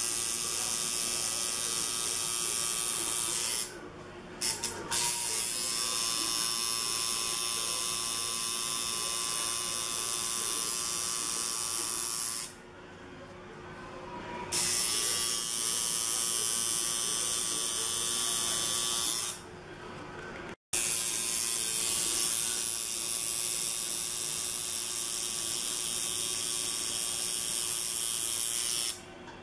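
Electric tattoo machine buzzing steadily while lining a tattoo, stopping and restarting a few times: briefly about four seconds in, for a couple of seconds around the middle, and again near the end.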